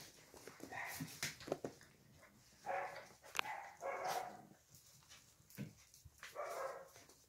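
Puppies making short yips and play growls in about four brief bouts while tugging at a toy, with a few sharp clicks in between.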